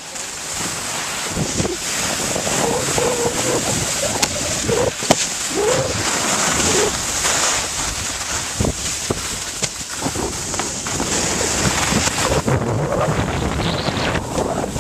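Wind buffeting the microphone of a moving camera, over the continuous hiss and scrape of riding down packed snow, with scattered knocks and bumps.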